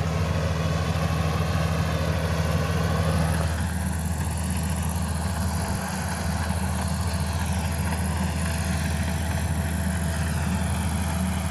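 John Deere 530 combine harvester's engine running steadily, its note shifting slightly about three and a half seconds in.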